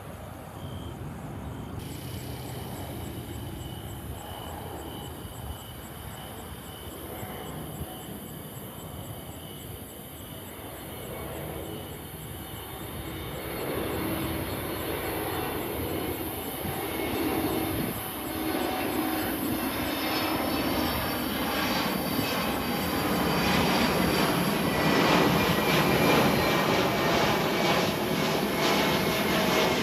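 Jet airliner on approach to land, its engines growing steadily louder as it comes near, with a whine that slides slowly in pitch. A few short high beeps sound in the first second or so.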